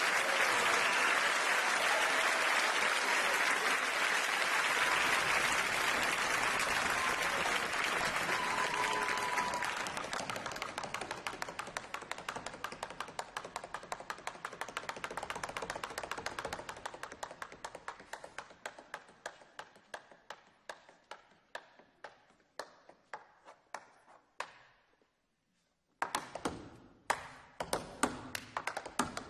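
Audience applause dies away over the first ten seconds as tap shoes start a steady rhythm on a tap board. The taps grow gradually softer until a moment of silence, then resume louder about 26 seconds in.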